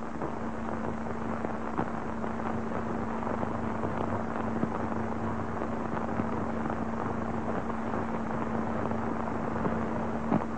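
Hiss and crackle of an old optical film soundtrack, with a steady low hum and scattered clicks.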